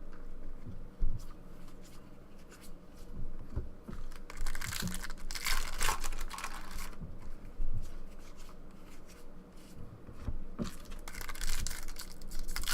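Trading-card pack wrappers being torn open and crinkled in several short bursts, with light knocks from handling the packs and cards in between.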